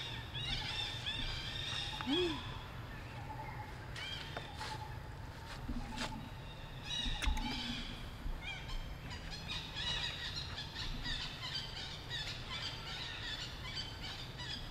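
Outdoor ambience of birds chirping and twittering, many short high calls one after another, with a single lower call about two seconds in and a couple of sharp clicks around the six- and seven-second marks.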